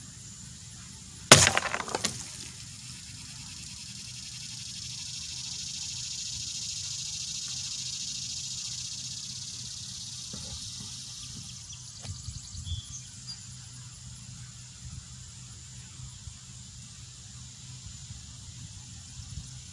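One sharp gunshot about a second in, fired at a water-filled glass jar, followed by a short crackle of the round striking the jar and water splashing out.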